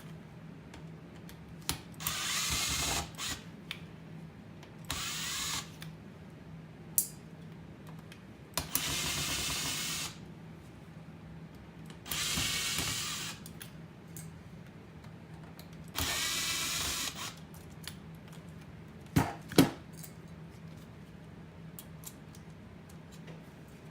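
Small electric screwdriver running in five short bursts of about a second each, backing out the small screws that hold an LCD screen in its housing. A few sharp clicks come between the bursts, the loudest a little after the last burst.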